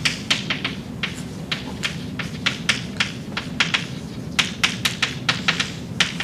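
Chalk tapping and scratching on a blackboard as words are written: a quick, irregular run of sharp taps, about four a second, over a steady low room hum.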